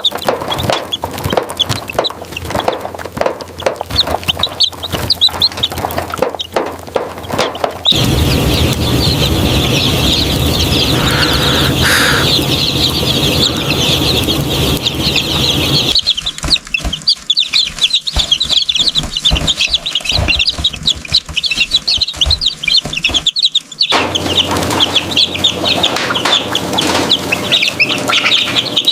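A flock of chickens calling, with many overlapping clucks and high cheeps. The sound changes abruptly about every eight seconds as one shot cuts to the next.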